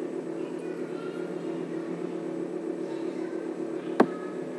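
A steady low hum, with one sharp click of a plastic Lego brick snapping into place about four seconds in.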